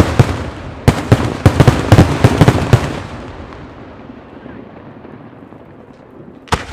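Rapid run of loud, sharp bangs from daytime aerial firework shells breaking into many salutes. The bangs stop about three seconds in and a rumbling echo dies away, then one more sharp bang comes near the end.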